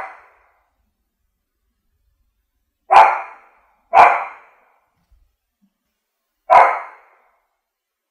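French bulldog barking in single barks with silence between: the end of one bark right at the start, then two barks about a second apart, and one more about two and a half seconds later.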